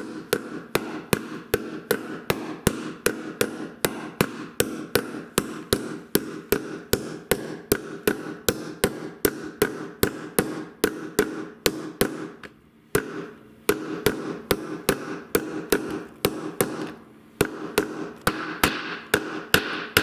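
Hammer striking the outer race of a steel ball bearing, driving it into the bearing seat of an LG washing machine's plastic rear tub half. The taps come in an even run of about three a second, each with a short ring, and break off briefly twice.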